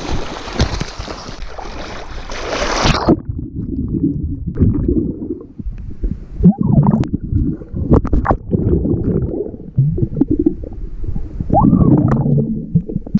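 Water splashing hard for about three seconds and stopping suddenly, then muffled low sloshing and gurgling with a few knocks, around a kayak that has taken on water.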